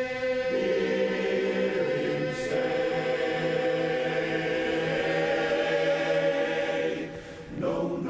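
Men's barbershop chorus singing a cappella, holding one long sustained chord that shifts twice, then releasing it about seven seconds in before moving into the next phrase.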